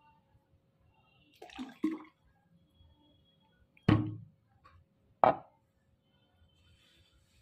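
Plastic water bottle and shaker bottle set down on a table: two sharp knocks about a second and a half apart, after some brief quieter handling noises.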